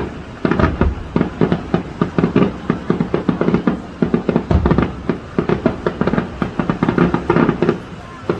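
Fireworks finale: a rapid, continuous barrage of bangs and crackling shells, several reports a second, with a heavier deep boom about four and a half seconds in.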